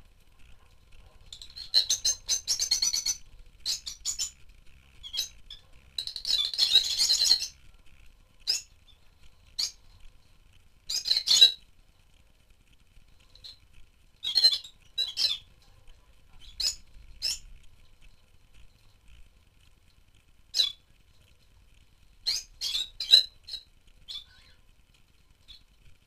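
Rosy-faced lovebirds calling: high-pitched squeaky chirps, with a longer chattering burst about two seconds in and another about six seconds in, then short single calls scattered throughout.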